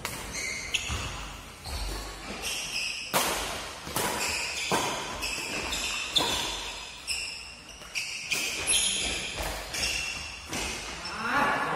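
Badminton rackets striking a shuttlecock in a fast doubles rally, with sharp hits about every half second to second, about fifteen in all, and shoes squeaking on the court between them. The hits echo in the hall.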